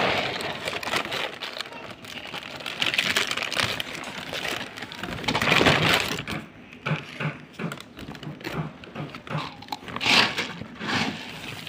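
Rustling and crinkling handling noises, as a bag of feed is picked up and carried, with scattered knocks.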